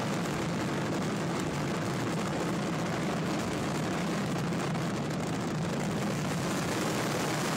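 Steady outdoor background noise: an even low rumble with a hiss over it and no distinct events.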